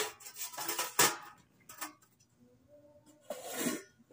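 Stainless steel steamer tier being fitted onto the stack: a few sharp metal clanks, the loudest about a second in, and a short scrape near the end as it settles into place.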